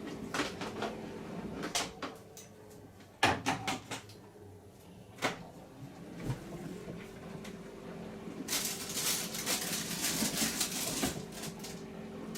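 Crockery and cutlery knocking and clinking as they are handled, in separate knocks with the loudest about three seconds in, then a dense rattle of clinks near the end. A faint steady hum runs underneath.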